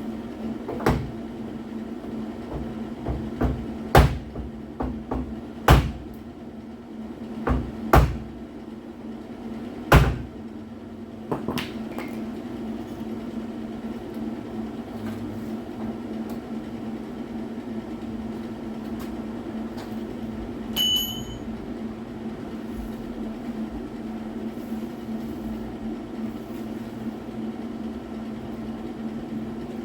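A steady electrical hum with about a dozen sharp knocks over the first twelve seconds. A single short beep comes about twenty seconds in, and the hum runs on.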